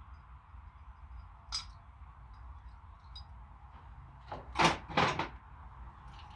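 Hand work on a motorcycle clutch master cylinder: a light click about a second and a half in, then a few loud scraping clunks near the five-second mark, over a steady low hum.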